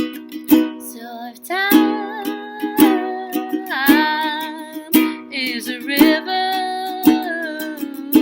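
Wordless singing, a sustained melody with vibrato, over a strummed small stringed instrument with strong strokes about once a second.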